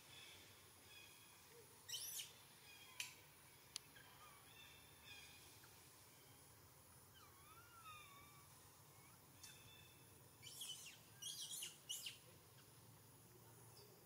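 Infant macaque giving short, high-pitched calls, each wavering in pitch: one about two seconds in and a quick run of several near the end. A faint gliding whistle sounds in between.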